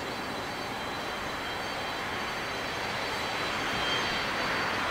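Boeing 747-400F freighter's jet engines running at low power as it taxis: a steady rush with a faint high whine, growing slightly louder near the end.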